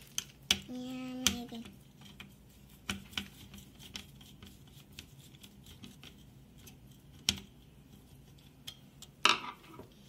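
Screwdriver working the spring-loaded CPU heatsink screws of a small desktop PC: scattered sharp metal clicks with light scraping between them, the loudest about half a second, a second and a quarter, and seven seconds in.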